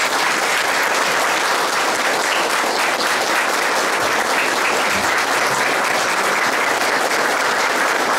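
Audience applauding, steady clapping of many hands.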